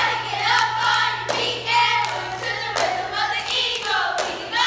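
Girls' cheerleading squad chanting a cheer in unison, punctuated by sharp group claps about once a second, ringing in a gymnasium.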